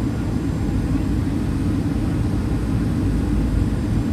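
Steady low roar of a Boeing 737-900's twin CFM56-7B jet engines, heard inside the passenger cabin.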